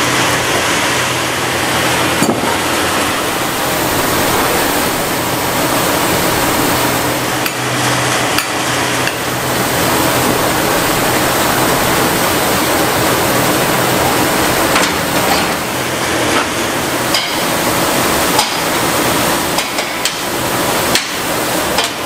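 Band sawmill machinery running with a steady loud noise and a low hum, broken by scattered sharp metallic knocks and clanks from the log carriage and conveyor as a large log is handled.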